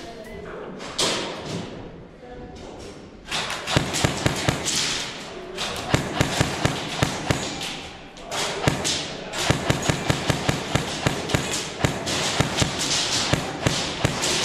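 Airsoft rifle firing in quick runs of sharp shots, starting about four seconds in and going on in bursts, with the clicks and thuds echoing off the walls of an indoor plywood-walled field.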